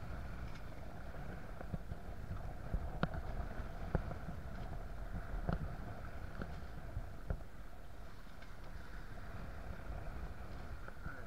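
Small sailboat running through rough, choppy water: a steady rush of wind and water with sharp, uneven knocks about once a second as the hull meets the waves. A faint steady hum sits underneath.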